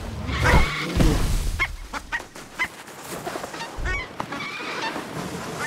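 Cartoon ostrich making short honking squawks, several in a row, with heavy low thumps about half a second, one second and four seconds in.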